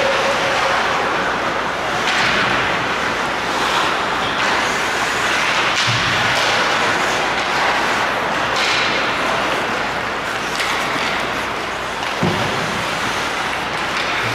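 Ice hockey game ambience in a rink: a steady noisy hiss of play on the ice, with a few sharp clicks and two dull thumps about six and twelve seconds in.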